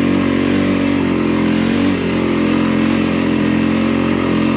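Voge motorcycle engine pulling steadily under load as the bike climbs a very steep dirt track, its pitch holding fairly even.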